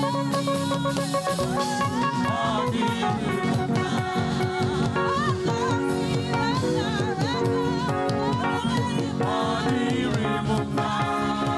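Live gospel praise music: a choir singing over a band with drums and steady instrumental backing.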